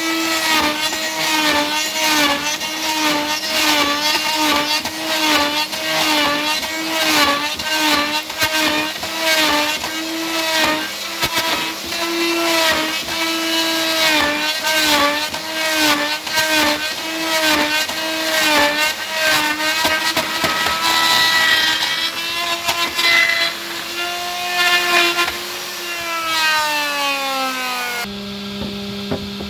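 Electric power tool motor cutting into wood for a door lock mortise, its pitch dipping again and again as the bit bites under load. Near the end the motor slows and its pitch falls away.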